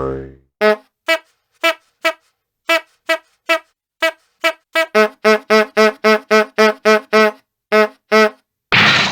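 Cartoon sound effect: a string of short, brassy horn toots on the same pitch, spaced out at first and then quickening to about three or four a second from about halfway. A loud noisy whoosh-like burst starts near the end.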